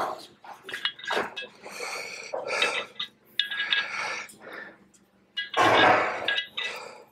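Pistol-grip grease gun being pumped to grease the motor shaft's splines: about five separate strokes of metallic clinks and squeaks from the gun's lever and hose coupler.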